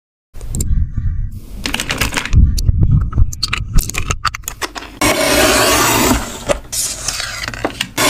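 Small hard candies clicking and rattling in a metal tin, with a few heavier knocks. From about five seconds in, a paper trimmer's cutting head is slid along its rail over paper, making a steady scraping rub.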